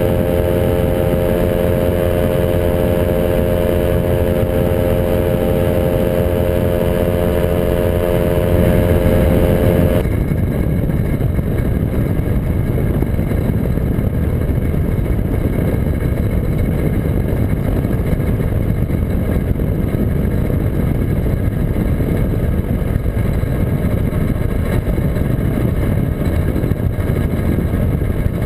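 Ultralight aircraft's two-stroke engine running steadily at cruise power with wind rush over the microphone. About ten seconds in, the steady engine tone drops away suddenly, leaving a lower, rougher rumble and wind noise: power is pulled back for the descent toward the field.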